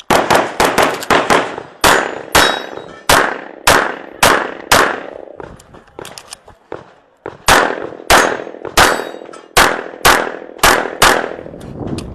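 A competitor's handgun fires rapid strings of shots during an IPSC practical shooting stage, many in quick pairs, with a brief lull about five to seven seconds in, likely a reload or a move between positions. Some shots are followed by a short metallic ring.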